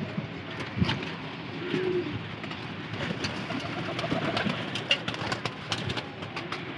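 Domestic pigeons cooing while the flock bathes in a shallow metal tray of water, with frequent splashing and wing flicks.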